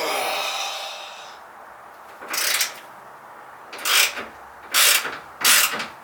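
A hand wrench on a 15 mm bolt working loose the upper mounting bolt of a worn rear shock. There is a longer scraping stroke at the start, then five short strokes as the wrench is worked back and forth.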